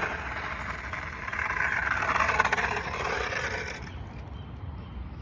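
Small hard wheels rolling and scraping over skate-park concrete in a steady grinding rush that stops about four seconds in.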